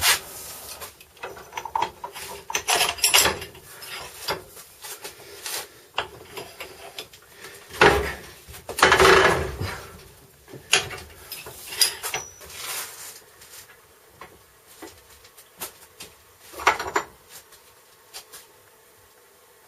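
Tools and parts being handled at a workbench: a string of irregular knocks, clicks and clanks, with longer scraping rattles about eight to ten seconds in, going quiet near the end.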